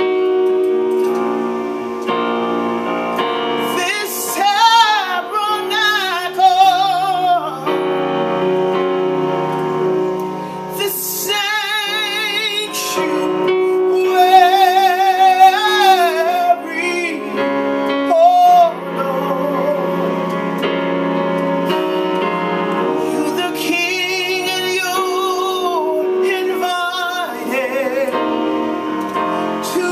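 A woman singing gospel solo in long, ornamented phrases with heavy vibrato, over held keyboard chords.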